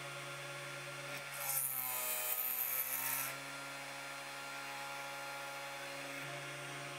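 A CNC 3018 Pro's spindle motor runs with a steady hum. About a second in, a 1 mm drill bit bores into the copper-clad circuit board for about two seconds, adding a hiss while the spindle's pitch dips under the load and recovers.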